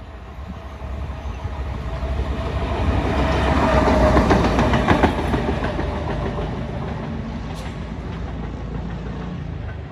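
An Indian Railways OHE inspection car, a self-propelled diesel tower car, running through a station at speed. Its rumble builds to a peak with a run of wheel clicks over the rail joints as it passes, about four to five seconds in, then fades as it draws away.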